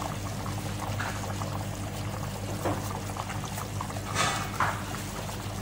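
Thick tomato-based okra and chicken stew at a full boil in a stainless steel pot, its bubbles popping and plopping, with a few louder pops about a second in and around four seconds.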